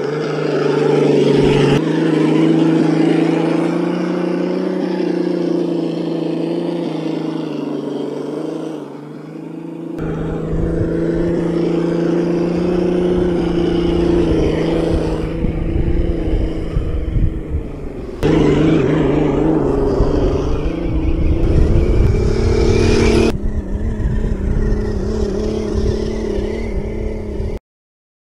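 FTX Kanyon 1/10-scale RC crawler's electric motor and gearbox whining steadily at crawling speed, the pitch jumping abruptly several times, with wind rumble on the microphone from about a third of the way in. The sound stops dead just before the end.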